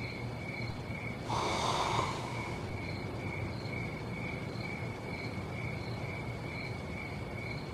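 Crickets chirp in a steady pulse, about two chirps a second. About a second and a half in, there is one long, breathy exhale from a sleeper.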